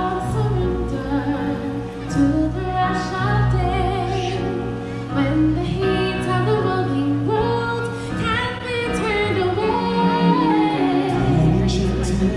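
Stage-show music: a singer holding long, wavering notes with vibrato over a full instrumental backing with a steady low bass.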